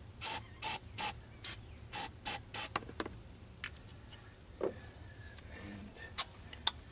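Aerosol spray can squirted in about seven short hissing bursts into the intake of a Honda TRX300EX's single-cylinder engine, to help the low-compression engine start. After that come a few scattered clicks and taps, with a sharp click about six seconds in.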